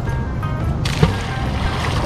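A heavy fishing magnet on a rope, thrown from a bridge, splashes into the water a little under a second in, followed by a steady rushing noise.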